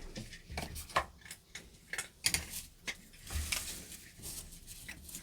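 Pokémon trading cards and packs being handled on a table: a few soft taps and clicks with light rustling as cards are set down and moved.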